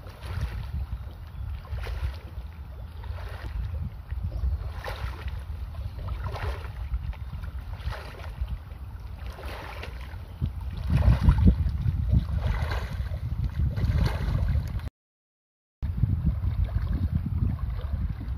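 Water swishing and splashing with each stride as legs wade through shallow sea water, about one stride every three-quarters of a second, over a steady low rumble of wind on the microphone. The sound cuts out for about a second about three-quarters of the way through.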